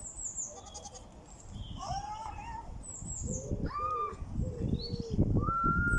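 Small birds chirping in short, high, down-sweeping notes, with a few longer pitched calls among them and a low rumbling noise that grows louder in the second half.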